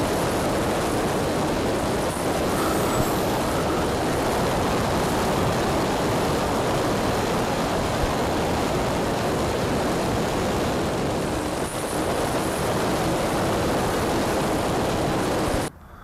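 Steady rush of wind and propeller noise picked up by a camera mounted on an E-flite Sukhoi electric RC aerobatic plane in flight. It cuts off suddenly near the end.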